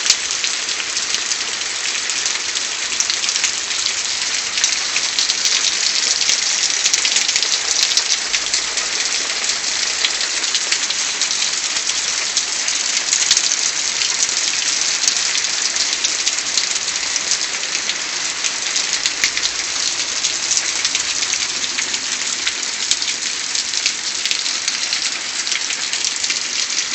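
Steady rain falling, a dense even hiss peppered with the ticks of individual drops hitting surfaces.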